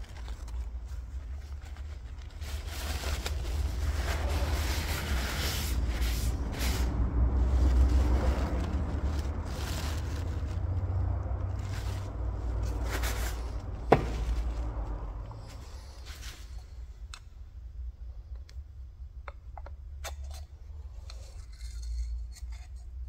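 Paper towel rustling and crinkling as an oil-soaked filter element and its plastic housing are wiped by hand, with one sharp click a little past halfway, over a steady low rumble. The handling quietens in the last third to scattered small ticks.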